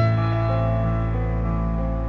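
Background music: slow, soft instrumental music with sustained low notes and piano-like chords, a new chord struck at the start.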